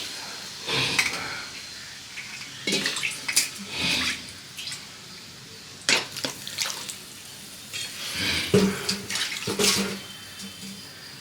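Water being poured into a pepper-garlic gravy in a kadai, heard as irregular splashes with occasional clinks of a utensil against the pan.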